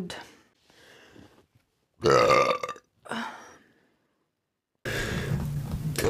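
A woman's loud, pitched burp about two seconds in, followed by a shorter, quieter one.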